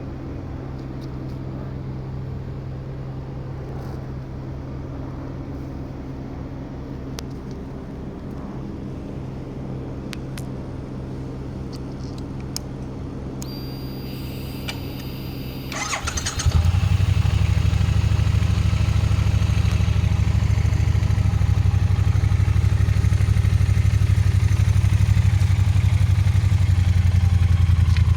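Triumph Bonneville T120 parallel-twin engine running steadily at idle through its stock exhaust. About 16 s in, a brief clatter is heard, and then the engine sound becomes much louder and deeper and stays steady.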